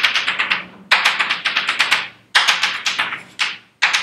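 Chalk tapping rapidly on a blackboard as dots are stabbed onto it, about ten sharp taps a second in runs of roughly a second with brief pauses between.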